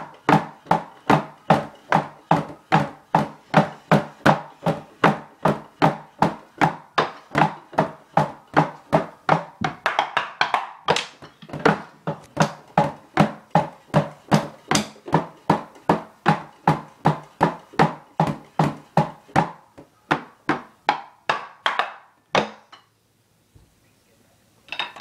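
Wooden drumsticks striking the rubber pads of an electronic drum kit. The kit's own sound goes to headphones, so only the dull thwacks of stick on pad are heard, a steady beat of about three hits a second. It stops about 22 seconds in, and a few more hits come near the end.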